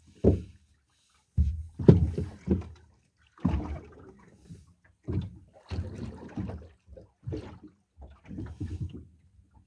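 Water lapping against a boat's hull in irregular low slaps and sloshes, about eight in all, with short quiet gaps between.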